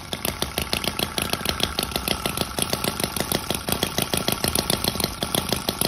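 Miniature Knucklehead V-twin model engine running at a steady idle, its firing pulses rapid and evenly spaced, with a steady whine over them.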